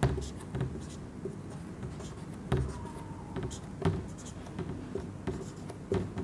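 Marker pen writing on a whiteboard: a series of short scratchy strokes and taps of the tip against the board, several separate sharp ones spaced a second or two apart.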